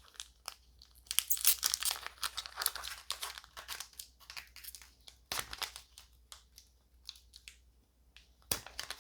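Foil trading-card booster pack wrapper being torn open: a long tearing rustle about a second in, followed by a few short crinkles of the wrapper.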